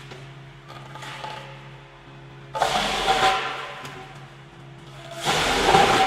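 Electric-motor disc wood chipper running with a steady hum, breaking into a loud crunching roar twice as logs are chipped: once about halfway in and again near the end.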